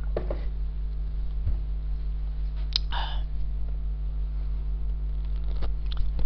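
Steady electrical mains hum in the recording, with a few faint clicks and a short breathy noise about three seconds in.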